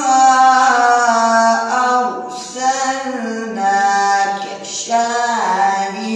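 A man chanting a Quran recitation solo, in long drawn-out melodic phrases that rise and fall, with short breaths for air about two seconds in and again near the end.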